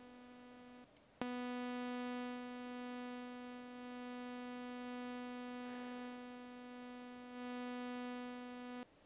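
Native Instruments Massive software synth playing a buzzy square-saw wavetable note. A short note ends just under a second in; then one long note is held with its volume swelling and dipping, shaped by the envelope's morph and loop section, before it cuts off near the end.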